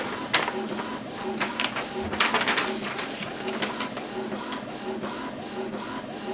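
Epson EcoTank ET-2720 inkjet printer printing a print-head alignment page: the print head shuttles back and forth with a quiet, repeating whir, punctuated by clicks of the paper feed. It is very quiet.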